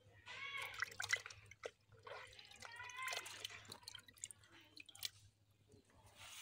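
Water splashing and dripping in a small metal bucket as live climbing perch flap in it and a hand reaches in among them, with irregular clicks and knocks.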